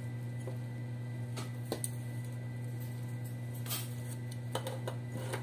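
Packaging being handled on a wooden tabletop: a few short clicks and rustles as a wiring harness with plastic connectors is lifted out beside bubble-wrapped ignition coils, with a cluster of them near the end. A steady low hum lies under it.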